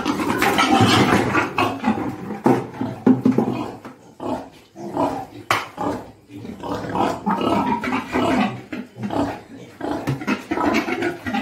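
Breeding pigs grunting over and over during mating, a boar mounted on a sow. There are irregular low grunts throughout and a couple of sharp clicks.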